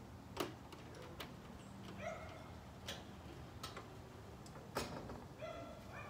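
Scattered sharp metal clicks and knocks, the loudest about half a second in and another near five seconds, as steel roof-rack mounting hardware is handled and fitted onto the crossbars. Two brief pitched sounds come around two seconds and near the end.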